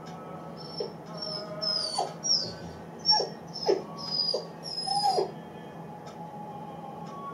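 Eight-week-old Great Dane puppy whining and whimpering in its crate: a string of short, high-pitched, mostly falling cries from about one second in to about five seconds in, the distress of a puppy left alone.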